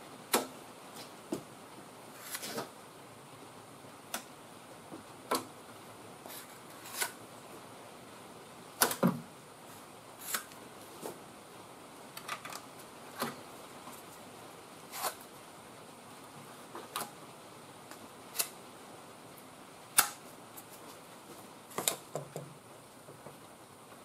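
Irregular sharp clicks and light taps, about twenty of them, roughly one a second, as a plastic spreader works JB Weld epoxy onto the cab corner's sheet metal.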